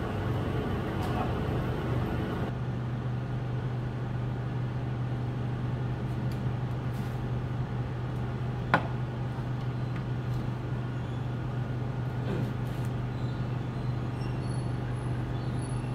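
Steady low machine hum, with one sharp plastic click a little past halfway as the red lid comes off a plastic jar.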